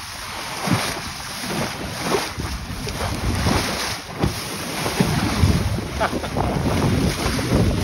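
Wind buffeting the microphone over the rush and splash of a sailing yacht's bow wave as the hull cuts through the sea. The sound is a gusty low rumble mixed with water spray.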